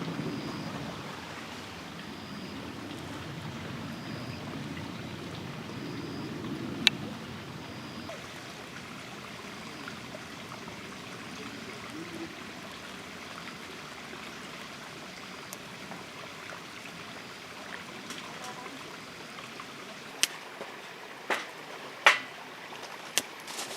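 Steady rushing noise of flowing water. A faint short high chirp repeats every couple of seconds in the first several seconds, and a few sharp clicks come near the end.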